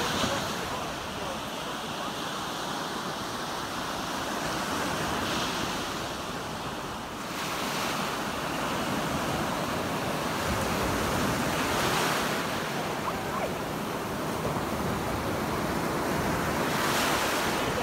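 Small waves breaking and washing up over a sandy beach. The surf swells and drains back every few seconds.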